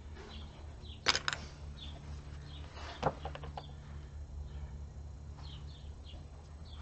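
Sharp metallic clinks from metal parts and tools being handled while a transfer case is taken apart: two quick clinks about a second in and a single knock about three seconds in. Short high bird chirps repeat in the background over a steady low hum.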